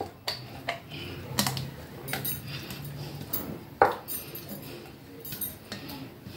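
Scattered clinks and knocks of a stainless-steel mixer-grinder jar against a steel plate as ground dal paste is tipped and scraped out of it by hand. The sharpest knock comes near the middle.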